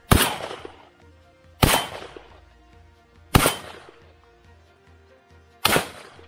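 Shotgun fired four times in quick succession, each shot sharp and loud with a short echo trailing off, over faint background music.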